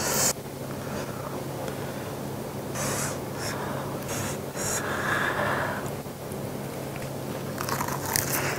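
Close-miked eating sounds: a short loud hiss at the start, then soft rustles and breaths as a lettuce wrap is handled. Near the end comes the crisp crunching of a big bite into a lettuce wrap of pig's trotters and kimchi.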